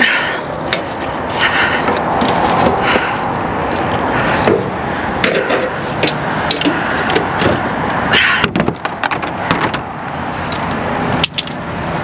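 Plastic trash bags rustling and bottles and other items knocking and scraping as a hand-held reach grabber picks through a dumpster, with many sharp clicks and a louder rustle about eight seconds in.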